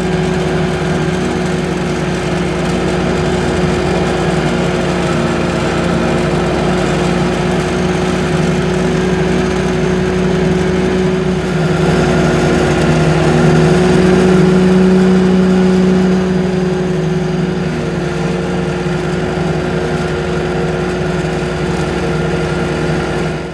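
Walker riding lawn mower running steadily while cutting grass, a constant engine hum that gets a little louder about halfway through and eases back a few seconds later.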